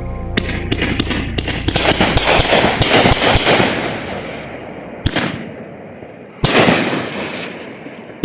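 Fireworks going off: a rapid, dense string of cracks and pops for about three seconds, then a single sharp bang, then a loud burst lasting about a second.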